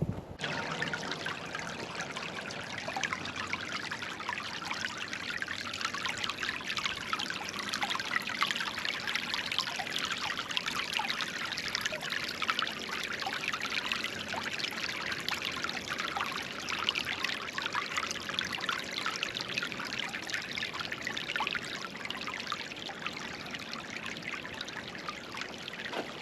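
Creek water trickling and splashing steadily, a busy rush of many small splashes.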